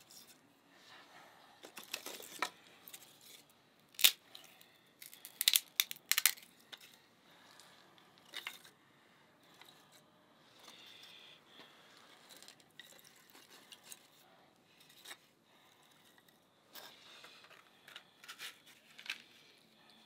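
Thin dry wood kindling being split and snapped by hand: a series of sharp cracks and tearing sounds, the loudest about four seconds in and a quick cluster a second or two later, then quieter scraping and a few smaller snaps near the end.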